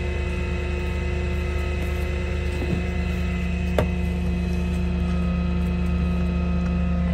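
Dodge Ram 5500 wrecker's engine idling with a steady hum, with a sharp metallic click about four seconds in.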